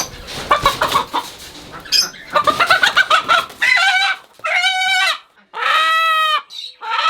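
Chicken clucking in quick, broken calls. From about four seconds in it gives a run of loud, drawn-out squawks, each just under a second long.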